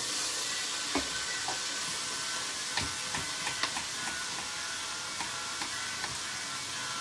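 Chopped onion and carrot sizzling steadily in olive oil in an enamelled pot, with scattered sharp clicks and knocks from stirring, then a few knife taps cutting carrot on a wooden board.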